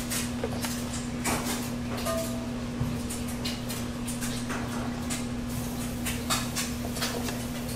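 Vertical slow juicer running with a steady motor hum, its auger crushing apple slices and greens, with frequent sharp cracks and clicks as the pieces drop into the hopper and are broken up.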